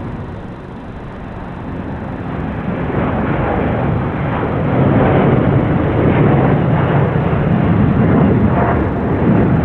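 Boeing 787 jet engines at takeoff thrust during liftoff and initial climb: a heavy, crackling rumble that swells over the first few seconds and is loudest from about halfway on.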